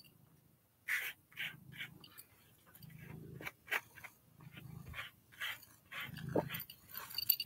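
Grooming brush raking through a short-haired cat's coat against the lie of the fur: a short rasp of bristles every half second or so. Under it runs a low, rhythmic breathing sound from an animal close to the microphone.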